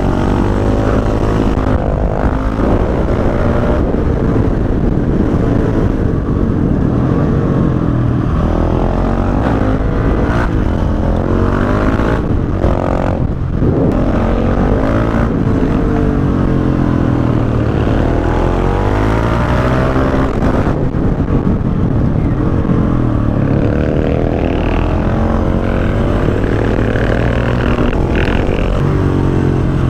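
KTM 690 SMC-R's single-cylinder engine through an Akrapovic exhaust without its dB killer, ridden hard. The engine pitch rises and falls again and again as it revs up and eases off.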